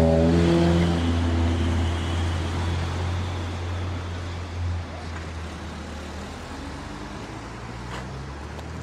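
Low motor-vehicle engine drone in city traffic noise, starting abruptly, with pitched tones that step downward in the first couple of seconds. The drone weakens after about five seconds, leaving a steady traffic hiss.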